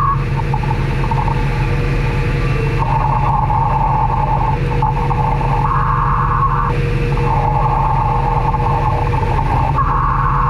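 Small gas-engine air compressor running steadily on deck to feed air to a diver below. A higher whine in the sound cuts in and out and steps up and down in pitch every couple of seconds.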